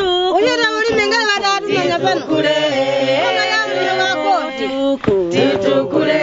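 A group of women and men singing a work song together, its words urging everyone to work hard and grow coffee. Lower voices join the higher ones about two seconds in and drop out again a couple of seconds later.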